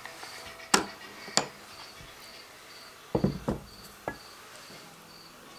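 A cricket chirping steadily, about two short high chirps a second, with a few sharp knocks and heavier thuds against a wooden cutting board as a slab of set maize-meal pap is laid on it and a knife is handled.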